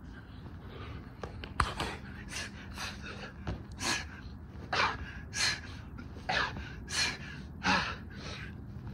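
A man gasping for breath, hard and fast, out of breath from doing burpees: loud breaths come about every half second to second from about a second and a half in.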